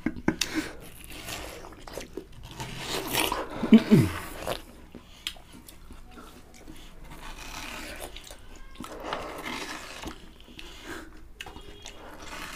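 Wet biting, slurping and chewing of watermelon flesh eaten face-down from the slice without hands, heard as a string of short noisy bursts and clicks. A short falling voice sound about four seconds in.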